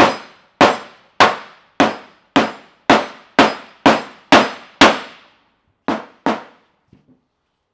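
Dead blow hammer striking an inner sleeve, driving it into a urethane bushing of an upper control arm: about ten sharp, evenly spaced blows at roughly two a second, then a short pause and two more, with a couple of faint taps near the end.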